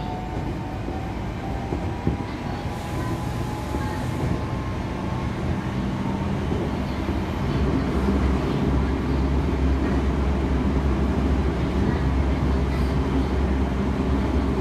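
Running sound inside a Tokyo Metro 07 series electric train. Faint inverter tones climb slowly in pitch over the first few seconds as it gathers speed. From about halfway through, a low traction-motor hum and the running noise grow louder and hold steady.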